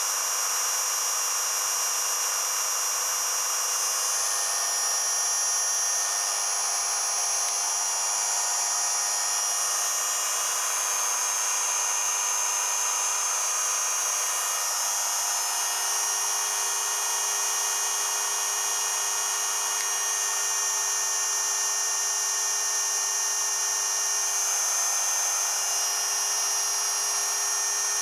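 Electric motor spinning the RAG v1.4 generator's rotor, a steady high-pitched whine of several tones. Its speed rises slightly while both regen coils are loaded.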